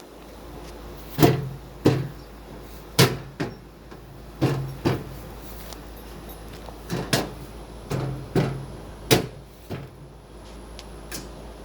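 Footsteps on a hard floor: about a dozen sharp knocks, loosely in pairs about half a second apart with short pauses between, several with a dull low thud.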